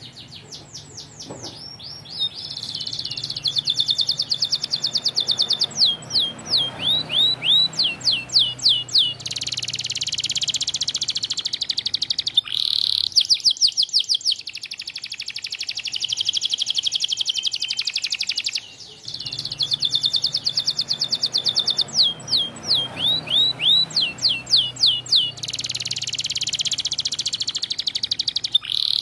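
A white domestic canary singing a long, loud song of fast trills and rapid runs of repeated chirping notes, with one short break about two-thirds through.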